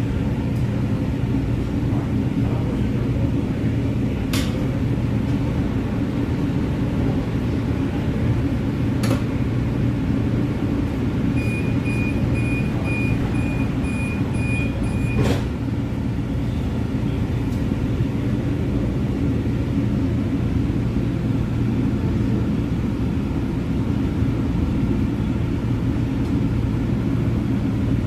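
Steady low hum and rumble inside a CTrain light-rail car at a station platform. Around the middle comes a run of short high beeps lasting about four seconds, the door-closing warning chime, ending in a sharp click as the doors shut.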